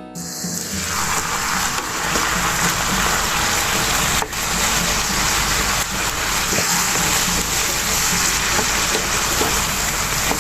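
Food sizzling in a hot frying pan: a dense, steady hiss that starts abruptly at the beginning and keeps going.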